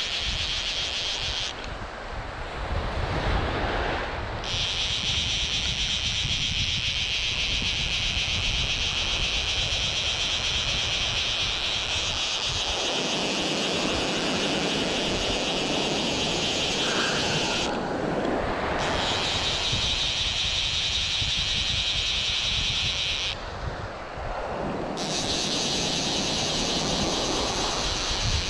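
Fly reel's drag buzzing steadily as a hooked fish pulls line off. It stops briefly three times: about 2 s in, about 18 s in and about 24 s in. Waves washing and wind on the microphone run underneath.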